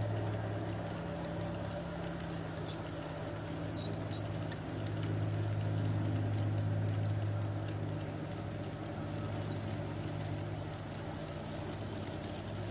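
G-scale model freight train rolling past on garden-railway track: a steady low hum that swells and fades, with light clicking of the cars' wheels over the rail joints.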